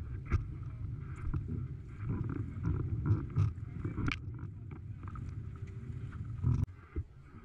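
Steady low wind-and-water noise from a foiling windsurf board riding over choppy water, broken by scattered short knocks and clicks. It drops off sharply about a second before the end.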